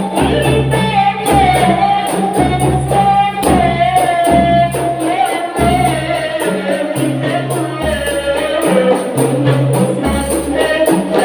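A woman sings a devotional melody into a microphone over an ensemble of hand-beaten frame drums. The drums keep a steady rhythm of sharp slaps with a deep bass stroke about once a second.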